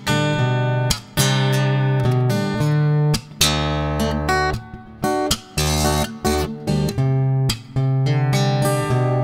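Background music: plucked acoustic guitar playing a run of notes over a held bass note.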